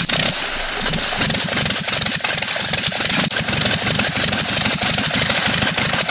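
Grumman Tiger's four-cylinder Lycoming O-360 aircraft engine, on an open test stand and turning a McCauley propeller, idling steadily just after starting on its first run after the build, a leak-check run.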